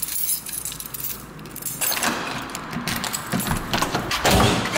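A bunch of keys with a car key fob jangling in hand, rattling more busily from about two seconds in, with a louder knock near the end as the front door swings shut.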